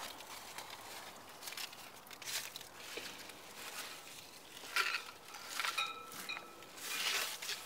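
Faint scuffing and rustling of someone moving about with a handheld camera, with a few clicks and a brief high squeak about six seconds in.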